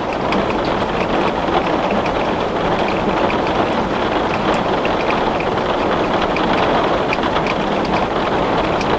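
Heavy rain falling on glass: a dense, steady hiss of rain with many small, sharp ticks of drops striking the pane.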